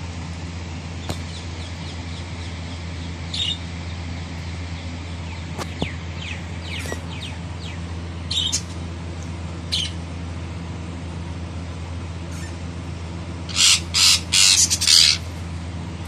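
Parakeets calling: scattered short calls and falling chirps, then a loud burst of about four harsh squawks near the end, over a steady low hum.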